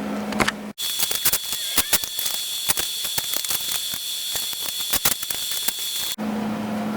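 Welding arc crackling in a dense run of irregular clicks over a steady high whine, laying a small tack weld on the end of a throttle cable. It starts abruptly about a second in and stops abruptly near the end.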